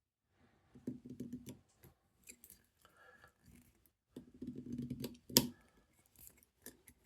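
A steel pick wire and tensioner scraping and clicking inside a safe lever lock as the wire is worked in to feel the levers. There are short bouts of scratching, and one sharp click about five seconds in is the loudest sound.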